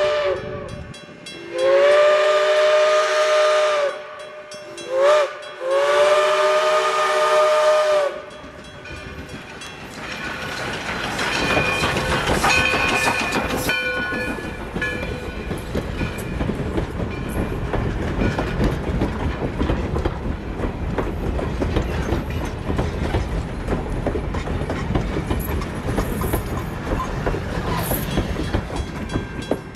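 Steam locomotive chime whistle sounding the grade-crossing signal: the end of one long blast, another long, a short and a final long. The Alco 2-8-0 steam locomotive and its train then pass, with a steady rumble and the clatter of wheels on rail.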